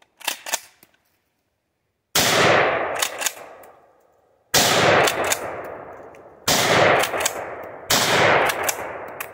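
Rock Island Armory 12-gauge shotgun fired four times in fairly quick succession, each blast echoing and dying away over a second or two. Short sharp clacks come just before the first shot and shortly after each shot, as the action is worked.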